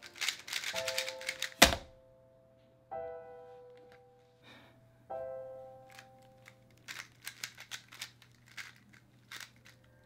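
A 3x3 speedcube being turned fast: rapid plastic clicking of the layers in a run during the first two seconds, with one loud sharp snap, then another run of clicks from about seven seconds in. Held chime notes of background music sound between the runs.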